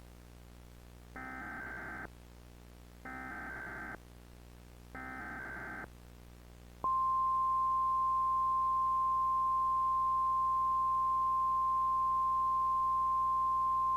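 Emergency Alert System header: three short bursts of warbling digital data tones, about two seconds apart, then a steady single-tone attention signal from about seven seconds in, opening a required monthly test alert.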